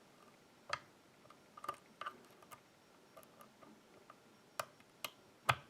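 Sparse, light clicks and ticks of a lock pick working the pins of a pin-tumbler lock under tension, with about seven sharper clicks scattered irregularly through it.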